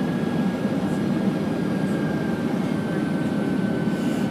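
Steady cabin noise inside a Boeing jet airliner descending on approach: an even rumble with a thin, high whine that slowly falls in pitch.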